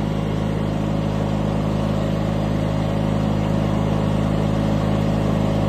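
John Deere 316 garden tractor's Onan 16 hp, 782 cc engine running at a steady speed as the tractor is driven along.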